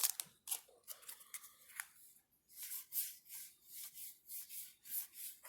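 Weiss Schwarz trading cards being flipped through one at a time, each card sliding off the stack with a short papery swish. A few scattered ticks come first, then the swishes settle into an even pace of two to three a second.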